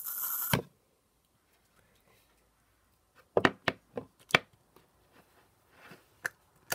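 Slime activator squirted from a plastic bottle onto sticky pink slime with a short hiss, then a knock. About three seconds later, fingers poke and work the slime in its plastic tub, making a run of sharp wet pops and clicks, with a few more near the end.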